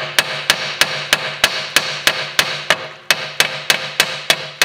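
Hammer tapping steadily on a VW Tiguan's front hub carrier around a seized, lubricant-soaked bolt to free it, about three sharp even blows a second.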